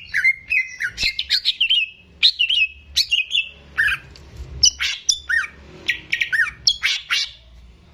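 Greater green leafbird (cucak ijo) in full song: a varied run of quick sweeping and falling whistles and sharp chirps, delivered in rapid phrases with brief pauses.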